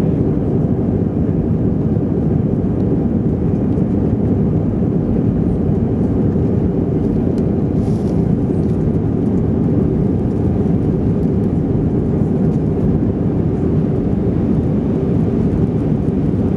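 Steady low drone of an Airbus A320 in flight, heard inside the cabin: jet engine noise and airflow at an unchanging level.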